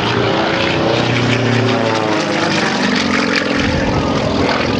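Single-engine propeller aerobatic plane flying overhead, its engine note shifting up and down in pitch as it manoeuvres.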